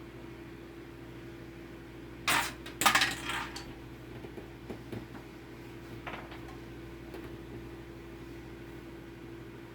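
Small hard parts clattering as they are handled and set down, a loud clatter about two seconds in followed by a few lighter clicks, over a steady hum.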